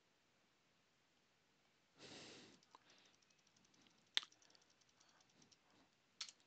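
Faint computer keyboard typing with a few sharper clicks, the loudest about four seconds in and another pair near the end, after a brief breath into the microphone about two seconds in. The rest is near silence.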